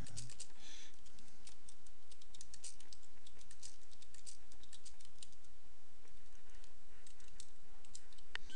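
Typing on a computer keyboard: an irregular run of keystroke clicks.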